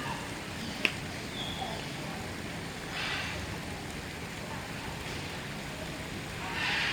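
Outdoor background murmur with faint distant voices, a single sharp click about a second in, and soft hissing swells around three seconds and near the end.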